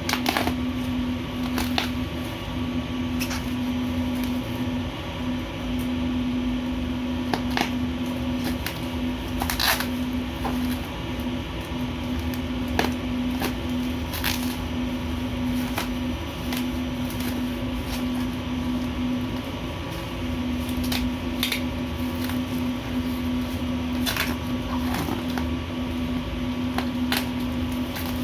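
Packaging being handled during an unboxing: scattered sharp clicks and rustles, about a dozen, over a steady low hum.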